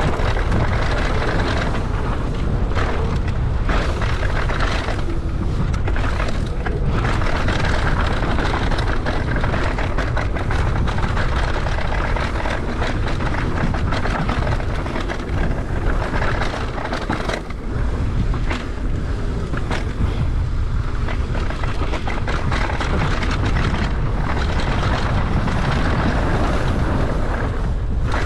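Wind buffeting the camera microphone and knobby tyres rolling fast over dirt on a mountain bike descent, with frequent short rattles and knocks from bumps and ruts.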